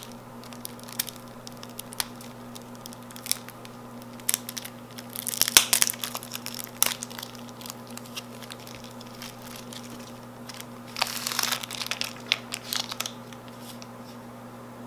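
Cellophane wrapper being torn and peeled off a playing-card box by hand: scattered crinkles and snaps, with two longer bouts of crinkling about five and eleven seconds in.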